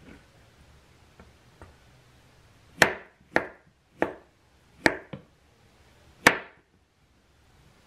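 Chef's knife slicing through a peeled pear and striking the cutting board: two faint taps, then about six sharp, separate chops starting about three seconds in, the last one the loudest.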